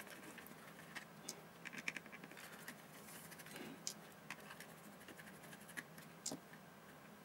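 Small screwdriver turning out tiny screws from a digital multimeter's circuit board, with faint scratching and scattered light clicks as the screws and board are handled.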